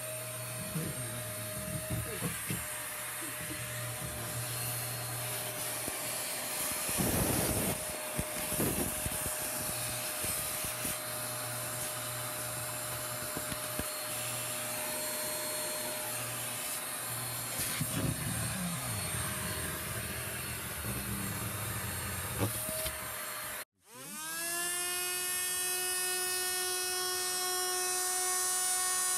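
Handheld vacuum cleaner running steadily, its sound shifting now and then as it draws in debris. Near the end it cuts off abruptly and a handheld power tool starts up, its whine rising in pitch as it spins up and then holding steady.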